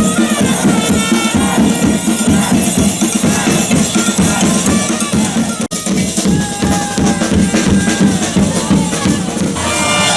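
Loud music with fast, dense percussion like tambourine, and a melody on top; the sound cuts out for an instant about halfway through, and steadier held notes come in near the end.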